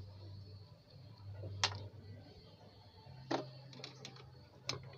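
Three sharp clicks and a few lighter ticks, spread over a few seconds, as tools and a glue bottle are handled on a workbench, over a low steady hum.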